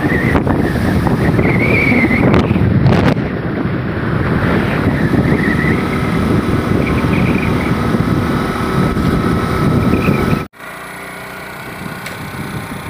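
Wind buffeting an outdoor phone microphone, a loud rough rumble that cuts off sharply about ten seconds in, leaving a quieter steady outdoor background.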